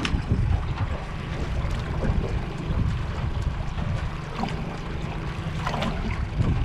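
Wind buffeting the microphone on an open boat at sea, a steady low rumble with a few light clicks and knocks.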